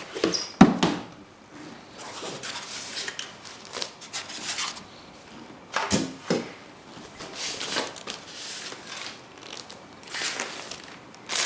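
Cardboard box and plastic packaging being handled, with irregular rustling, crinkling and scraping and a sharp knock about half a second in.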